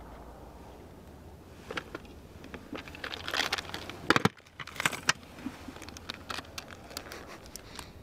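Fishing gear being handled aboard a small boat: clicks, taps and rustling, busiest about halfway through, over a faint steady low hum.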